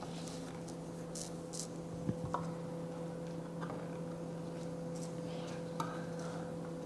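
Hand-turned can opener worked slowly around a can: a few faint, widely spaced clicks and scrapes over a steady low hum.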